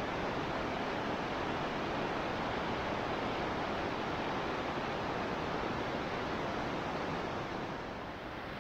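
Rushing water of a mountain stream's cascades, running high after heavy rain: a steady, even rush that eases a little near the end.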